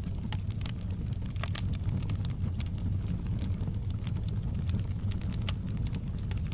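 Wood fire burning in a fireplace, with many irregular sharp crackles and pops from the logs over a steady low rumble of the flames.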